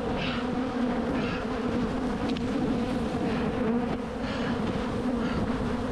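Swarm of honey bees buzzing around an opened hive, a steady wavering hum close to the microphone from a colony stirred up by the hive being opened.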